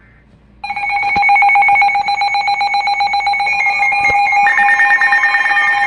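Emergency alert attention signal from a radio: a loud cluster of high electronic tones, pulsing very rapidly, that starts about half a second in, with another tone joining near the end.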